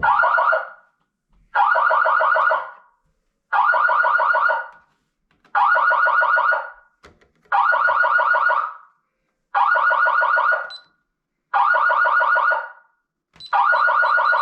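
Fire alarm siren sounding in a repeating on-off pattern after the manual pull station has been pulled: a loud, rapidly fluttering burst of about a second, eight times at about two-second intervals. A thin, high steady beep joins near the end.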